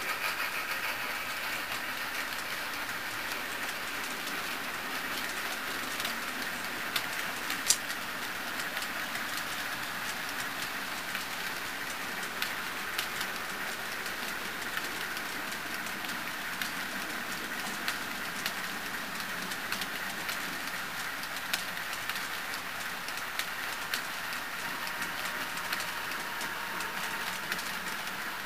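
HO-scale model freight cars rolling along the track: a steady rolling noise with scattered small clicks as wheels pass over rail joints, and one sharper click about eight seconds in.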